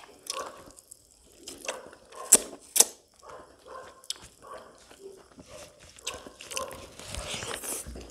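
Close-miked eating sounds: chewing and wet lip smacks from a man eating pork cooked in blood with rice, with two sharp smacks about two and a half seconds in. Fingers squish the rice and blood-soaked pork on a banana leaf, with a hissy wet squelch near the end.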